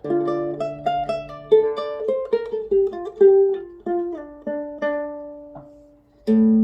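Olive U420G guitalele, a small six-string nylon-strung guitar with a spruce top, played fingerstyle: a melody of single plucked notes over a held bass note. The last note rings out and fades, then a new chord is struck near the end.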